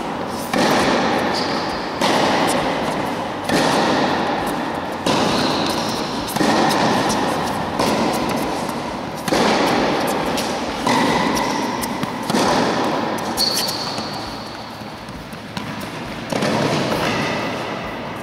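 Tennis rally: the ball is struck back and forth by the rackets, with a sharp pop about every one and a half seconds. Each hit rings on in the long echo of a large indoor tennis hall.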